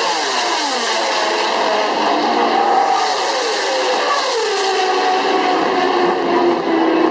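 High-revving racing engines, close by: their pitch falls again and again in quick succession for the first few seconds, then settles into a steadier note that slowly drops.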